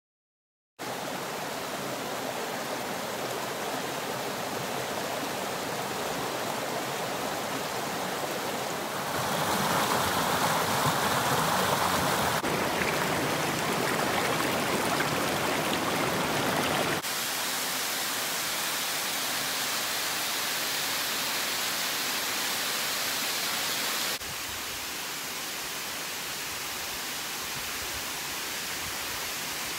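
Steady rush of water from a rocky mountain stream and a waterfall, beginning after a second of silence and changing abruptly in loudness and tone several times.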